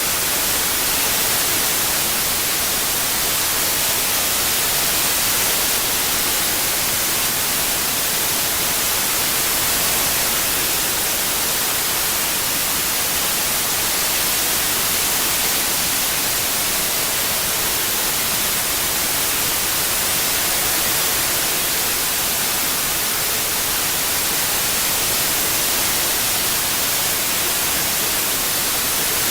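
Synthetic white noise: a steady, even hiss strongest in the high frequencies, with no change or events, made as a tinnitus-masking sound.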